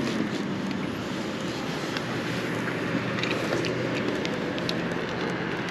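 Motorcycle engine running steadily, with wind noise on the microphone and scattered light ticks.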